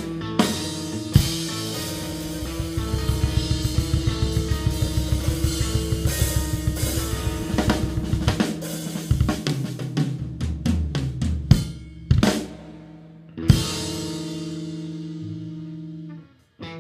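Live rock band of drum kit, electric bass and electric guitar playing. Held bass and guitar notes sit under a fast run of snare and bass-drum strokes, then come two big accented hits about a second and a half apart, the second left ringing and fading until it stops shortly before the end.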